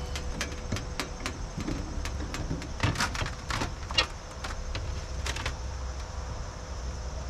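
A solar cooker being closed up: irregular clicks and knocks of its lid and parts being shut, a cluster in the first second, the loudest two about three and four seconds in, and a few more about five seconds in, over a steady low rumble.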